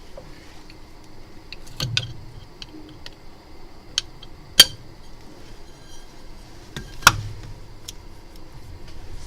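A few sharp clicks and taps as small phone-screen parts are handled and set into a rubber alignment base, the loudest about four and a half and seven seconds in, over a faint steady high-pitched hum.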